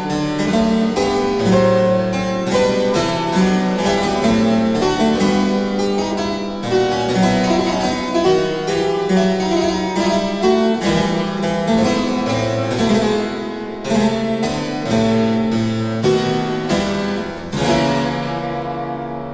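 Harpsichord music: a quick, busy run of plucked keyboard notes that fades out near the end.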